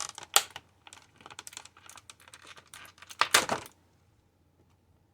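Plastic toy packaging being handled: a quick run of clicks, taps and crinkles as accessories are worked out of a plastic tray, with a louder rustle about three and a half seconds in before it stops.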